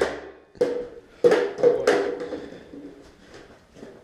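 Tippmann 98 Custom paintball marker firing a quick string of about four sharp shots in the first two seconds, each trailing off in a brief ring.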